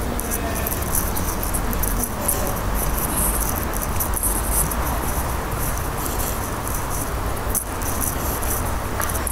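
Cicadas buzzing in a shrill, unevenly pulsing chorus, over a steady low rumble.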